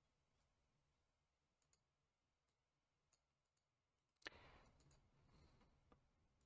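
Near silence, broken by faint computer mouse clicks; the sharpest click comes about four seconds in and is followed by a brief soft noise.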